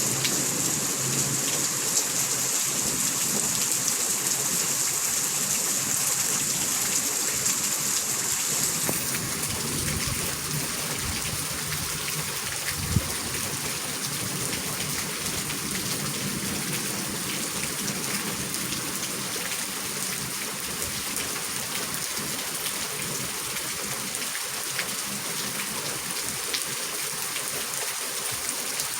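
Heavy rain falling steadily, a dense hiss with scattered drop ticks and one sharper knock about 13 seconds in.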